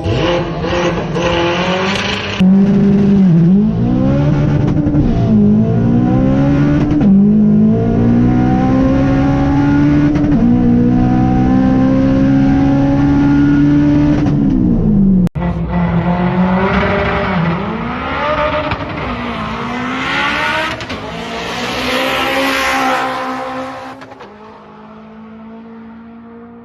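Turbocharged Honda K20 Civic engine accelerating hard through the gears, its pitch climbing and dropping at each shift. There are two runs cut together, the second fading away near the end.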